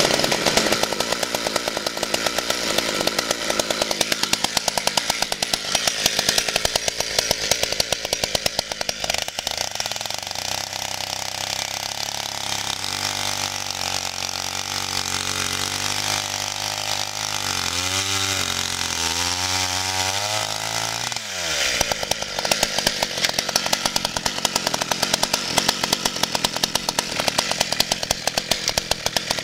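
Vintage Partner 350 two-stroke chainsaw, about 35 cc, running. Its engine note changes about 9 seconds in, wavers unevenly toward 20 seconds, then shifts sharply back about 21 seconds in.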